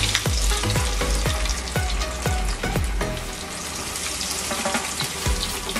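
Bread-crumbed chicken sticks deep-frying in hot oil, a steady bubbling sizzle, under background music with a steady beat.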